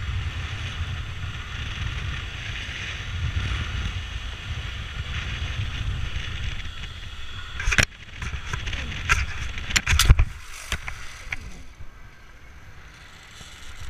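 Wind rushing over a helmet-mounted action camera as a rider speeds down a zipline, with the trolley's pulleys running on the steel cable. Past halfway, a series of sharp knocks and clatters, the loudest just past ten seconds, as the ride brakes at the bottom. The noise then drops away.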